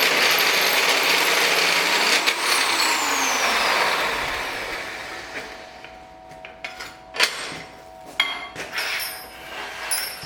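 A power tool running loud, then winding down with a falling whine about four seconds in, followed by several sharp metal knocks, some with a brief ring.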